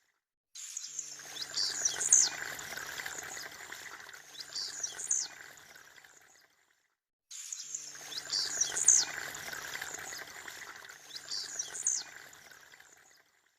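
Blue-black grassquit (tiziu) giving its short, high, buzzy song notes every second or two over a steady background hiss. The sound cuts out to silence twice, and the same stretch of song repeats.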